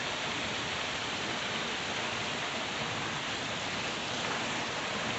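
Heavy rain pouring down steadily: a dense, even hiss that holds the same level throughout.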